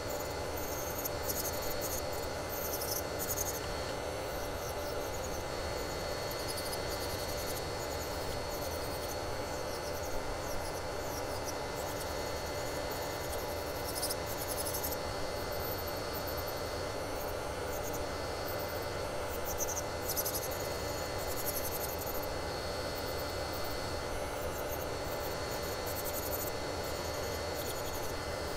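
Electric nail drill (e-file) running with a steady whine, its cone-shaped bit grinding old gel off a fingernail with irregular scratchy rasping.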